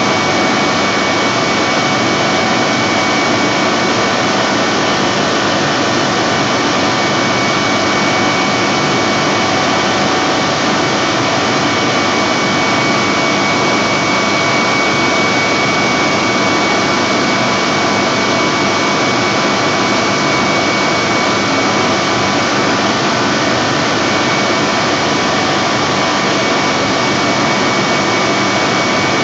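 Industrial turbo compressor driven by a 1300 kW, 6 kV induction motor running steadily at full speed: a loud, even rushing noise with a steady high whine over it.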